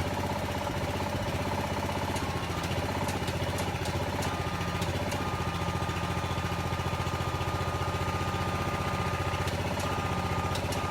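Small engine running steadily, powering a hydraulic pump that jacks settled concrete steps up on piers. A thin steady whine joins about four seconds in and holds.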